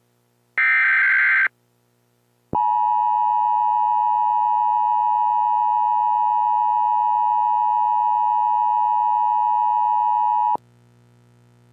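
The last of three Emergency Alert System SAME header data bursts, a short buzzing electronic squawk, ends about a second and a half in. A second later the EAS attention signal starts, a steady two-tone beep that holds for about eight seconds and cuts off suddenly. Together they announce the tornado warning that follows.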